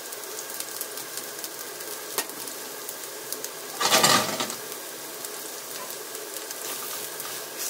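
Sliced fresh shiitake mushrooms sizzling in olive oil in a frying pan over high heat, with scattered faint pops. A little under four seconds in, the pan is shaken and the mushrooms toss and slide, briefly louder.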